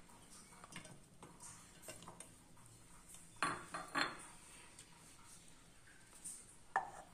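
Kitchen utensils and dishes clinking and knocking lightly, with two louder knocks about three and a half and four seconds in and another near the end.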